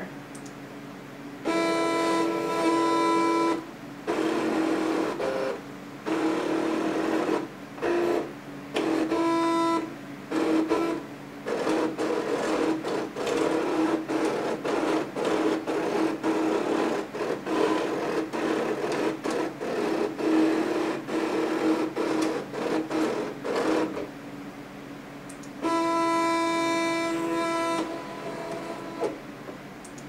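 Cricut electronic cutting machine cutting a paper card insert: its motors whine in stop-start runs as the mat feeds and the blade carriage moves. There are steady runs of a second or two at first and again near the end, and quick short moves in between.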